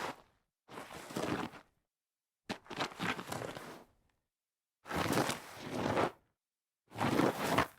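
A series of separate slides across dirt, each a gritty scrape lasting about a second or a second and a half, with silence between them: four in a row, after the tail end of one before.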